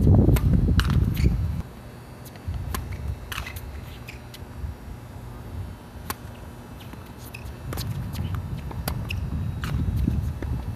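Wind buffeting the microphone as a low rumble, strongest in the first second and a half and building again near the end. Sharp pops of a tennis ball being bounced and struck by racket, scattered through.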